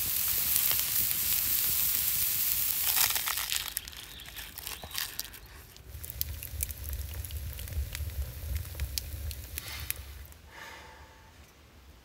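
Meat steaks sizzling on a cast-iron grill grate over a fire. Then a wood fire burning in a stove's firebox, a low rumble with scattered crackles, which fades out near the end.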